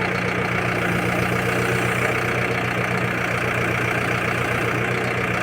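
Manitou backhoe loader's diesel engine idling steadily.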